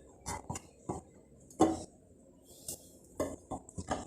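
Kitchen utensils and dishes clinking and knocking as lemons are handled and cut for salt-preserving: a handful of separate knocks, the loudest about one and a half seconds in.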